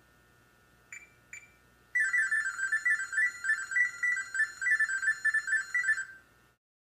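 LG microwave oven's control-panel beeper: two short key-press beeps, then a rapid tinny electronic melody lasting about four seconds. The tune follows setting the oven to child lock mode.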